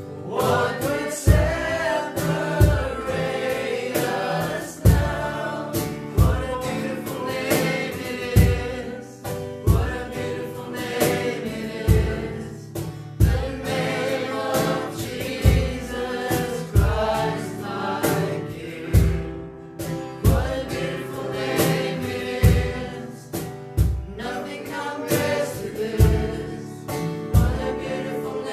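Live worship song: men singing with an acoustic guitar and a keyboard, over a steady beat of low thumps a little over a second apart.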